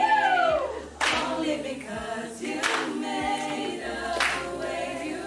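A small group of women singing together without instruments, with a sharp clap about every second and a half.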